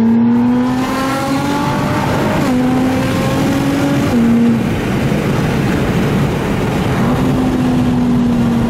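Nissan GTR's twin-turbo V6 breathing through a full titanium Armytrix exhaust, heard from inside the cabin. It accelerates with the revs climbing, makes quick upshifts about two and a half and four seconds in, then eases off under road noise, the engine note coming back and falling slowly near the end.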